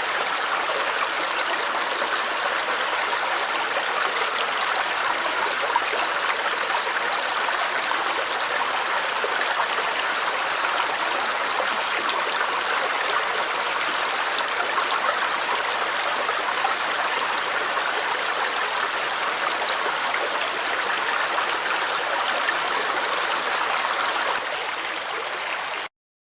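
A small stream babbling, water running steadily over the whole stretch, then cutting off abruptly near the end.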